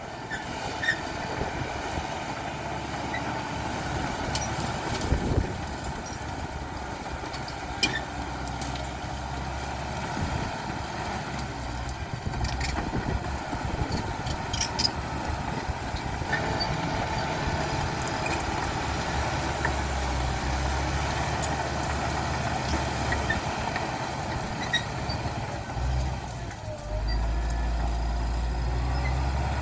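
CAT D5K XL bulldozer's diesel engine running steadily under load, with scattered sharp clicks and knocks. The engine gets louder near the end.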